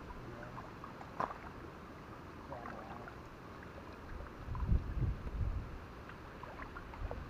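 Water sloshing and splashing as a fishing net is hauled through shallow water, with a sharp knock about a second in and heavier low sloshes a little past the middle.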